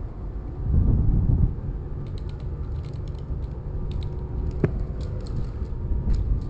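Airsoft guns firing as irregular clusters of sharp clicking pops, with one louder crack near the middle. Under them runs a low rumble of wind and movement on the body-worn microphone.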